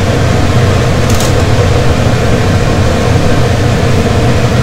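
A metal spoon stirring salt into a pot of boiling soup, with one light clink against the pot about a second in, over a loud steady hum and rush.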